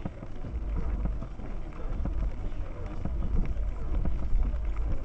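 Inside the cabin of an Audi A6 C5 2.5 TDI quattro estate driving over rough dirt: a steady low rumble from the V6 diesel and tyres, with frequent irregular knocks and rattles as the car goes over bumps.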